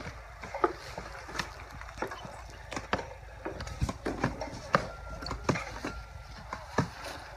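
Cork harvesting: irregular sharp knocks and cracks, about two a second, from hatchets striking cork oak bark and bark cracking as slabs are worked off the trunks.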